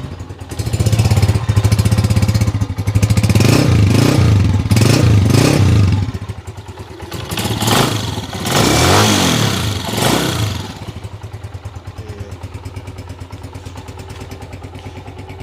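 Honda CG 125 single-cylinder four-stroke motorcycle engine being revved, recorded close to the silencer. The throttle is blipped several times in a first long burst, then opened again in a second rise and fall. About eleven seconds in it drops back to a steady idle.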